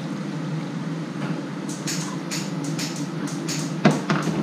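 Vodka poured from a frosted glass bottle into a ceramic mug, followed by a run of light clicks from handling the glass bottle, and one sharper knock just before four seconds in as the bottle meets the countertop.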